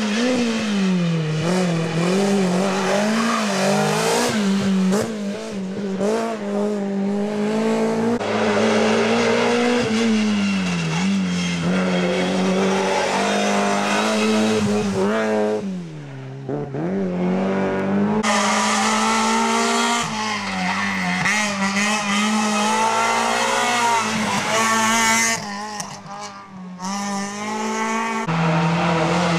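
Rally cars' small petrol engines, among them a Peugeot 106, revving hard at full throttle as they pass one after another, the pitch climbing and dropping with each gear change and lift-off.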